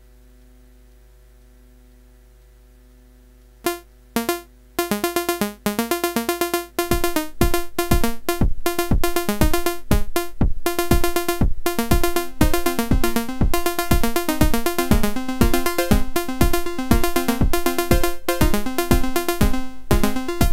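Eurorack modular synthesizer playing. It starts with a quiet steady drone; about four seconds in, sequenced synth notes begin and build into a repeating pattern. A low drum beat joins around seven seconds in.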